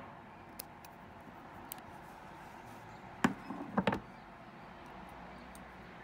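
Embroidery scissors snipping thread, a couple of faint clicks in the first two seconds, then several loud knocks about halfway through as the embroidery hoop and tools are set down on a wooden slat table.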